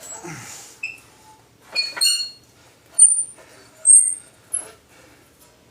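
Hand-cranked bead roller with tipping dies squeaking as a sheet-steel patch panel is forced through it to turn an edge. Short high squeaks come about once a second, the loudest near the middle and later on.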